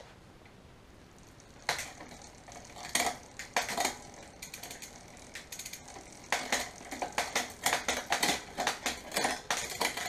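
Road bike drivetrain running on the stand as the chain is shifted across the cassette by a SRAM short-cage rear derailleur: sharp metallic clicks and chain rattle, a few spaced clicks at first, then a dense run of them from about the middle on, with the rear wheel spinning. It is shifting cleanly through most of the gears.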